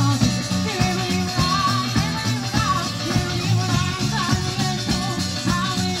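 Live band playing a popular folk song: bass guitar, drum kit and a hand-beaten frame drum keep a steady, driving beat, with a wavering melody line above them.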